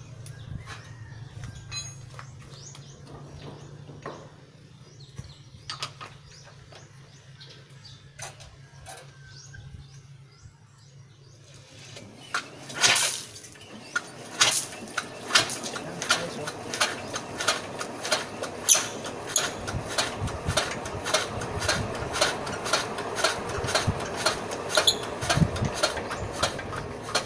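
Quick, irregular clicks and taps from hand work on a small generator engine, setting in about twelve seconds in and coming several times a second from then on. Before that, a low steady hum with only a few scattered clicks.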